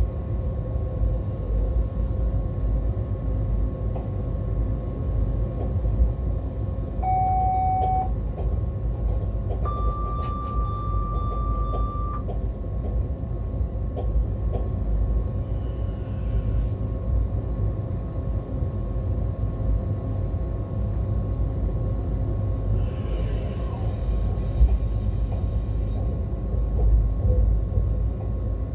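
Siemens Vectron electric locomotive heard from inside its cab while running: a steady low rumble from the running gear under a constant faint whine. Two short electronic beeps from the cab equipment sound, a lower one about seven seconds in and a longer, higher one about ten seconds in, and a faint hiss comes near the end.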